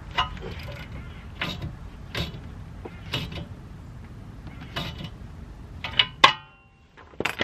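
Metal clicks and clanks of tools on the bolts of a car's rear suspension, coming irregularly about once a second. Near the end two louder clanks come close together, the second ringing briefly.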